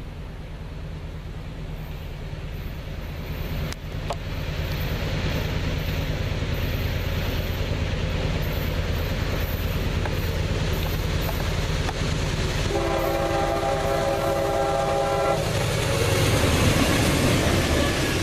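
A CSX freight train's diesel locomotives approach and pass, their low engine rumble and wheel noise growing louder. About 13 s in, the lead locomotive sounds one long horn blast of two to three seconds. The engines are loudest as they go by near the end.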